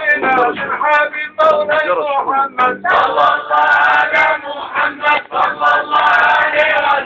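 Men singing a Sufi devotional chant together, with frame drum strokes beating steadily through it; the singing grows fuller about three seconds in.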